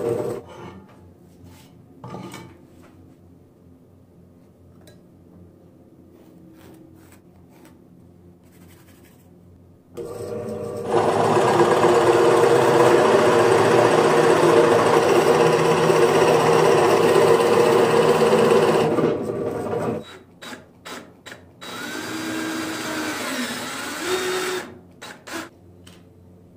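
Bench drill press starting about ten seconds in and boring into a wooden block with a large bit for about nine seconds: a loud, steady motor hum under the cutting noise. Before it come scattered light clicks and knocks, and after it come a few more knocks and a softer stretch of sound.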